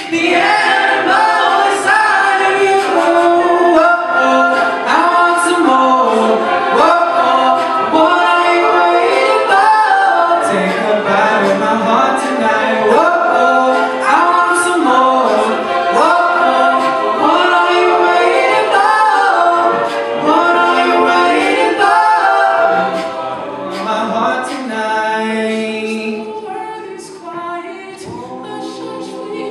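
Male a cappella group singing a song in close harmony through microphones, with vocal percussion adding sharp clicks that keep the beat. About 23 seconds in the singing drops to a quieter, thinner passage.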